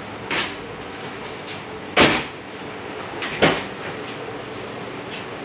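Three sharp knocks, the loudest about two seconds in, with a few fainter clicks over steady background noise.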